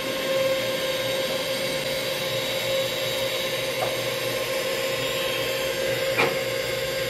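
Steady machine hum: a constant mid-pitched tone over a low drone, with two short clicks about four and six seconds in.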